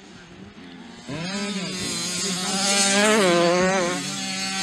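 Motocross bike engine arriving close about a second in and revving hard, its pitch rising, dipping and rising again with the throttle.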